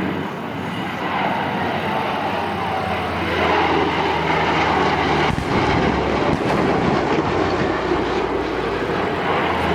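Piston-engined, propeller-driven warbird fighters making a fast pass at about 220 to 250 knots. The engine noise grows louder about three and a half seconds in.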